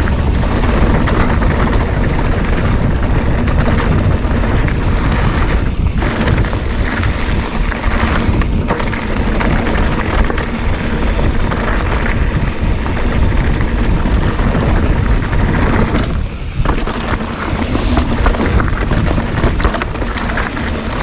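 Mountain bike rolling down a dirt trail: steady wind rush on the camera microphone over the rattle and knocks of tyres and frame on rough ground, easing briefly about 16 seconds in.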